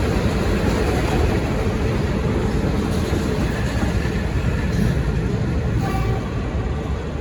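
V/Line passenger train rolling along the rails as it departs, a steady, loud rolling noise of wheels on track.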